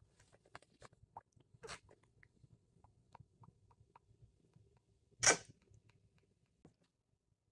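Faint small clicks and rustling from people moving and handling hair on a bed, with one short, loud burst of noise about five seconds in.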